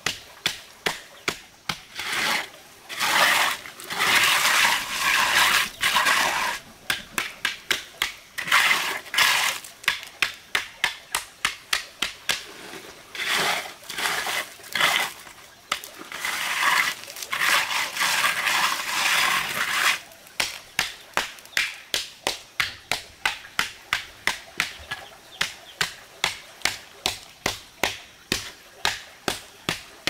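Hand trowel tapping flat on a freshly laid gravelly concrete floor, about two sharp taps a second, with several stretches of gritty scraping as the trowel is drawn across the surface to smooth it.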